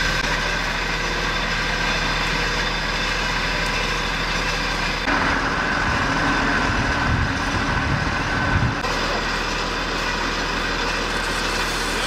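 Fire truck's engine running steadily, with a louder, rougher stretch in the middle.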